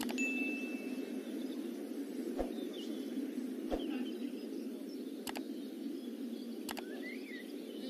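Steady muffled background noise with a few faint clicks. A short, high, clear ding sounds near the start, as the subscribe button's bell animates: a notification chime.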